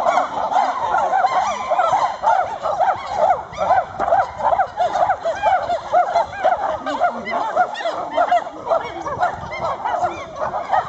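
A dense chorus of many animals calling at once: short calls that rise and fall in pitch, overlapping several times a second without a break.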